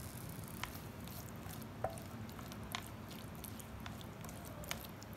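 Cucumber pieces being stirred through thick sauce in a steel pan with a silicone spatula: soft, wet squishing with a few faint clicks.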